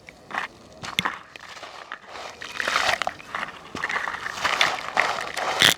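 Crunchy balls being crumbled, a dense irregular crackling and crunching with sharp clicks, the loudest about a second in and just before the end.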